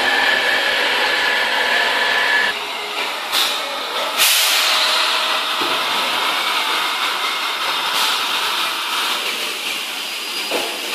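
Factory floor machinery noise: a steady hiss with a high tone that stops about two and a half seconds in, broken by a few sharp knocks, the loudest about four seconds in.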